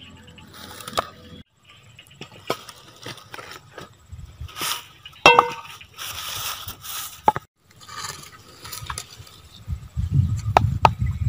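Food-preparation clatter: a cleaver knocking on a wooden chopping block and chopped vegetables being scraped into a wooden mortar, with a ringing metal clink about five seconds in and low handling thuds near the end.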